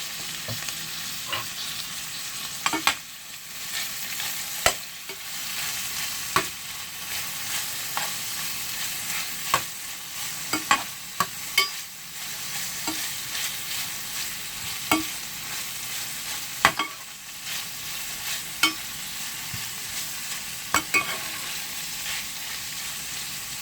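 Garlic, onion and ginger sizzling in a frying pan while being stirred, the utensil clicking and knocking against the pan at irregular intervals, about once every second or two.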